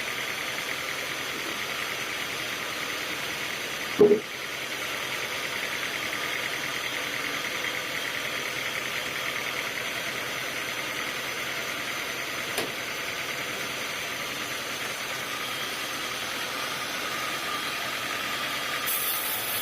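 Sawmill machinery running steadily without cutting, with a steady whine, one loud knock about four seconds in and a lighter click later.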